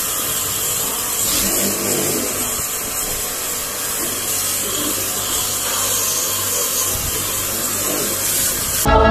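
StarQ W3 electric pressure washer running, its motor humming under the steady hiss of the water jet spraying onto the car to rinse off foam and shampoo. Music cuts in near the end.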